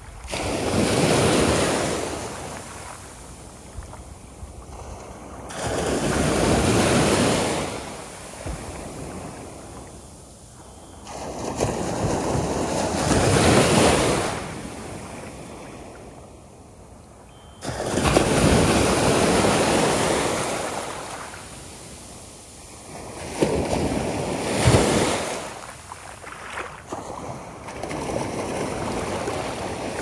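Small waves breaking and washing up a sandy beach, a surge of surf about every five to six seconds, six in all, each rising and then fading away.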